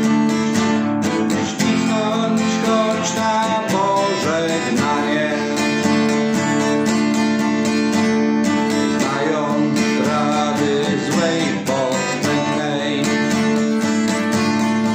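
Acoustic guitar strummed steadily, playing the chords of a song.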